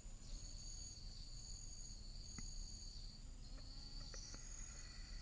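Faint, steady high-pitched trilling of several insects, overlapping, each trill breaking off and starting again every second or so, with a few faint ticks in between.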